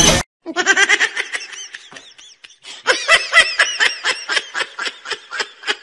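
High-pitched human laughter in two bouts of quick, rapidly repeated giggles, the second bout louder.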